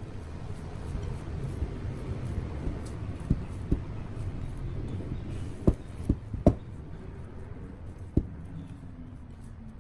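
Hands kneading sticky chocolate sourdough dough in a glass bowl: a steady low squishing and rubbing, with about six sharp knocks, most of them clustered in the middle.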